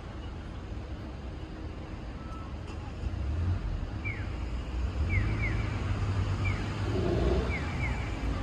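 Outdoor street ambience: a steady low rumble of traffic and wind, with short downward chirps from birds, a few at first and then several in quick succession.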